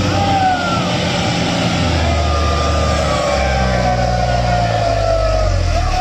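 Diesel engine of a loaded FAW Jiefang dump truck labouring at crawling speed, its low drone deepening and strengthening about two seconds in and again a little later as it takes the load. High thin whines slowly fall in pitch over it.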